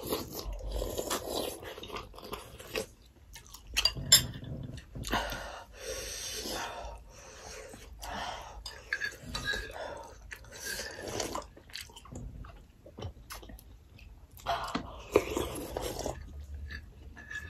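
Two people eating at a table: close chewing and slurping of noodle soup and momo dumplings, with irregular small clicks of spoons against bowls.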